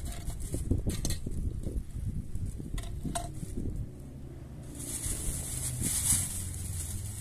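Plastic bag rustling and crinkling as handfuls of fresh-cut greens are pulled out and handled, with a few light knocks from a plastic crate. The loudest crinkling comes about a second in and again about five to six seconds in.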